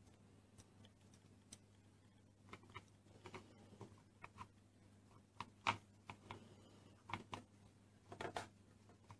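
Faint scattered clicks and taps of hands handling Play-Doh and small plastic toy pieces, a few at a time, loudest about two-thirds of the way through, over a low steady hum.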